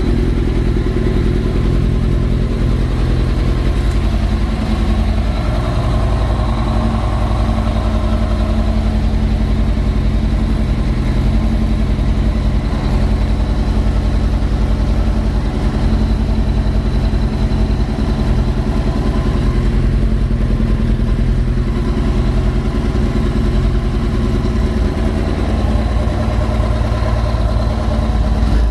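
2008 Kawasaki ZX-10R's 998 cc inline-four engine idling steadily, just brought back to life at its first start-up.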